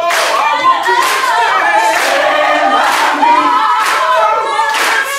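A stage cast of men and women singing together in harmony, with a sharp beat about once a second.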